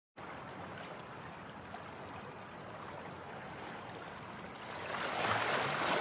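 Ocean surf washing onto a beach, a steady rush of water that swells louder about five seconds in as a wave breaks.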